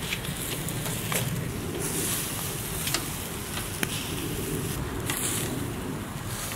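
Skewered turkey and chicken hearts sizzling over charcoal on a mangal: a steady hiss with a few scattered sharp crackles, over a low steady rumble.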